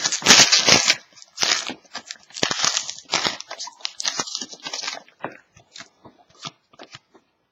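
Foil trading-card pack wrapper crinkling and tearing, with cards being handled, in a run of rustling bursts that thin out to a few soft clicks over the last couple of seconds.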